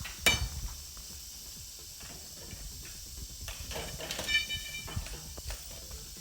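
Rattlesnake rattling, a faint steady hiss, under a low rumble, with two brief high-pitched tones about a third of a second and four seconds in.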